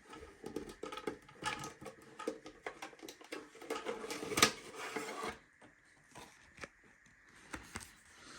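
Hands handling objects: a rapid run of clicks, taps and rustles for about five seconds, with one sharp click about four and a half seconds in, then only a few scattered clicks. A faint steady high tone sits underneath.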